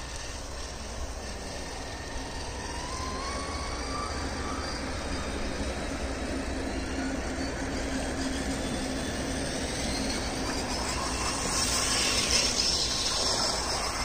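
Electric motors and gearboxes of radio-controlled scale crawlers whining while driving, with the whine rising in pitch about three seconds in and a louder hiss around twelve seconds.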